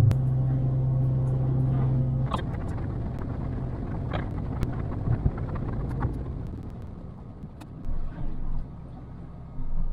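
Boat's outboard motor running under way with a strong steady drone that drops away about two seconds in. It carries on as a quieter rumble with a few light knocks.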